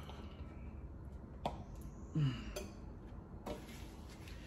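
A short, low burp about two seconds in, among a few faint clicks.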